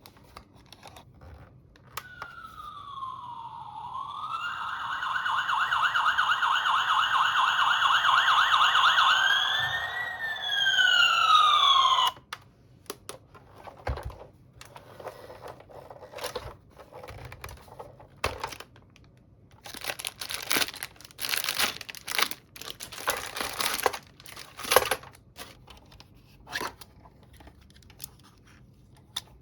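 A toy's electronic siren sound effect: a warbling tone that slides down, warbles steadily while getting louder, swoops up and down, then cuts off suddenly about ten seconds later. Plastic packaging is crinkled and torn after it.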